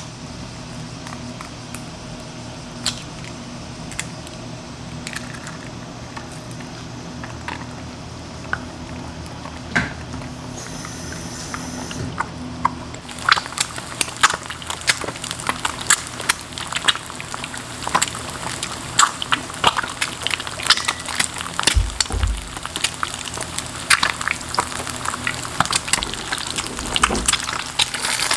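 Hot oil in a nonstick frying pan, with a few isolated pops over a steady low hum. About halfway through, an egg is frying in it and the oil breaks into a dense, continuous crackle and spatter.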